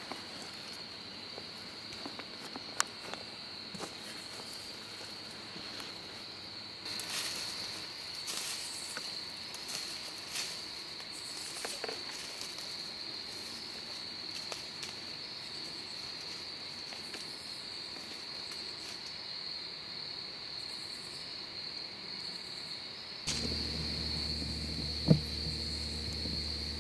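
Crickets chirping in a steady, high-pitched chorus. Partway through, scattered rustles and crunches in dry leaves come for several seconds. Near the end a low electrical hum comes in, and one sharp click is the loudest sound.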